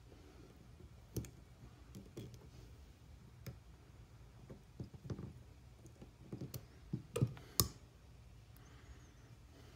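Small metal parts and hand tools clicking as a motorcycle rear brake master cylinder is fitted back together by hand: scattered light clicks and taps, with two sharper clicks a little past two-thirds of the way through.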